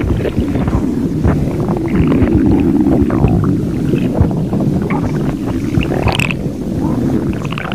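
A hungry stomach growling and gurgling: a continuous low rumble with irregular gurgles over it.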